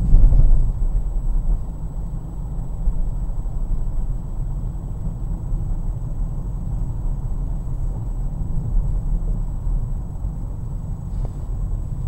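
Steady low rumble of a car driving: engine and road noise, with a brief louder surge right at the start.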